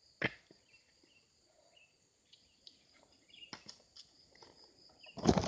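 A sharp knock about a quarter second in as coconuts and husks are handled at the husking spike, over a steady high insect drone with a few faint bird chirps. Loud rustling and knocking begins near the end.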